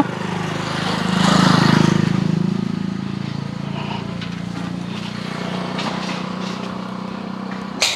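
Shakti S3 electric pressure washer's motor and pump running steadily, spraying soap water through the soap-dispenser bottle on its gun, louder about one to two seconds in.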